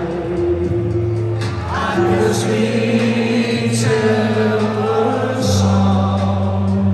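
Music: a song with sung vocals over sustained chords.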